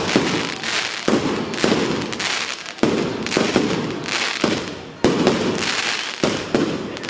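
Fireworks finale: a dense, continuous run of crackling pops and sharp bangs from bursting shells. Fresh volleys start abruptly about three and five seconds in.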